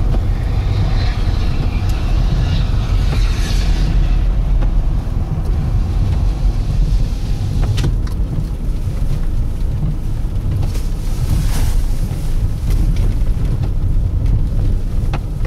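Car cabin noise while driving slowly on a snow-covered road: a steady low rumble of engine and tyres.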